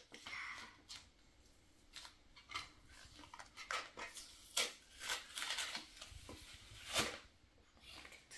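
Paper and plastic card packaging rustling and being worked open by hand, with scattered sharp clicks and crackles, two louder snaps about four and a half and seven seconds in.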